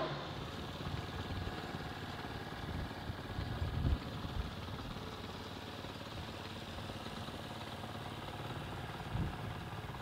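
An engine idling steadily with an even mechanical hum. A couple of short low thuds come about four seconds in and again near the end.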